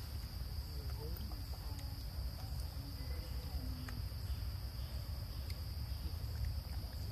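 Steady, high-pitched drone of an insect chorus, such as crickets, over a constant low rumble.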